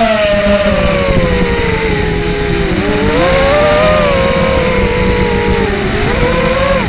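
Whine of a mini FPV quadcopter's RCX 1806 brushless motors spinning 5040 three-blade props, heard from the onboard camera. The pitch rises and falls with the throttle, dipping lowest about three seconds in and climbing again after.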